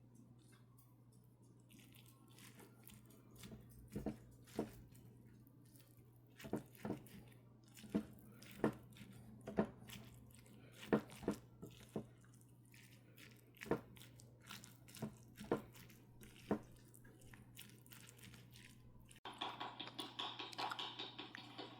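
Scattered light clicks and knocks of small objects being handled, one at a time with short gaps. Near the end they give way to a steadier, denser hiss and clatter.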